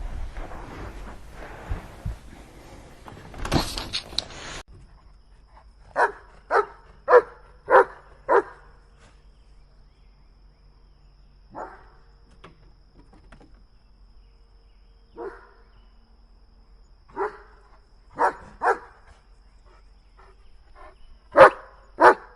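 A dog barking: a quick run of five barks, then single and paired barks spaced a few seconds apart. In the first few seconds there is a rough, noisy stretch ending in a short loud burst.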